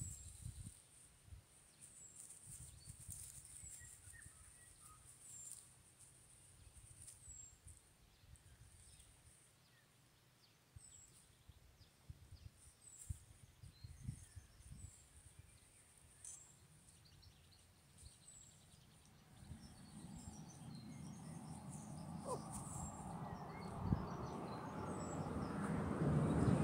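Outdoor ambience: a bird giving a short, high, falling chirp about once every second or so over a steady high hiss. Wind noise on the microphone grows louder over the last several seconds.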